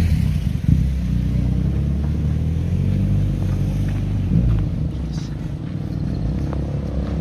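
Motorcycles passing on the road, a low engine rumble loudest in the first second and again about four seconds in, easing a little after that.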